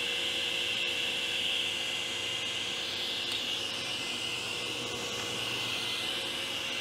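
Steady airy rush with a low hum from a workshop machine running continuously.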